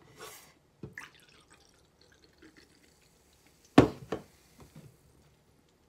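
A drink poured from an aluminium can into a small glass, with small clicks and a faint hiss of liquid. A single sharp knock about four seconds in, the loudest sound, as something is set down on the table.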